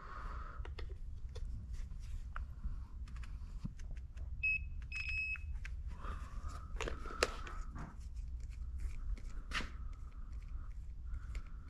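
Two short electronic beeps about four and a half seconds in, the second slightly longer, over a low steady hum with scattered faint clicks and rustles.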